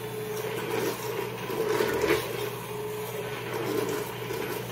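Vitamix immersion blender running in a pot, pureeing thick roasted tomato soup: a steady motor hum under the churning of the soup, which swells and eases every second or two.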